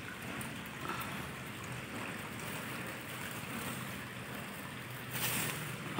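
Steady rushing background noise with no clear source, with a brief louder rustle about five seconds in and a short click at the very end.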